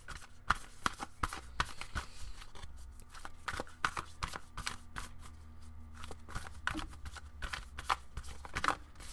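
A deck of oracle cards being shuffled by hand: a rapid, irregular run of soft card flicks and slaps, with a faint steady hum underneath.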